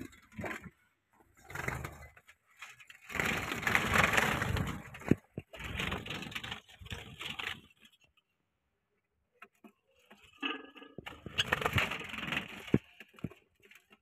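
Dry grass nesting material rustling and crackling against a clay nest pot as it is handled, in two long bursts with a few sharp cracks and a short quiet stretch past the middle.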